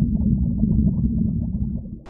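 Low, steady underwater rumble with a crackling texture, fading out near the end.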